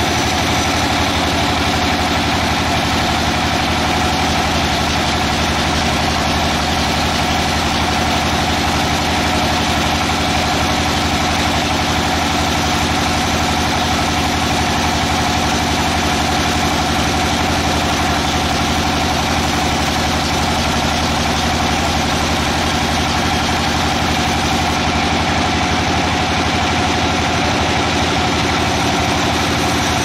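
Band sawmill running steadily, its blade cutting a board lengthwise off a red-wood log. The machine noise is loud and unchanging throughout, a dense mix of steady tones.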